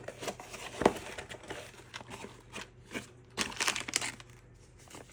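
Packaging crinkling and rustling in irregular crackles as a small electronic part is handled and unwrapped, with one sharp knock about a second in and a denser flurry of crackling past the middle.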